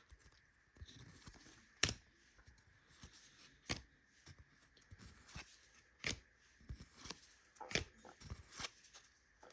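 Trading cards being handled and flipped through by hand, with short sharp card snaps about once a second.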